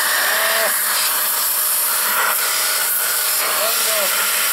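CowRC Jet Blaster handheld electric air blower running, a loud, steady rush of blown air.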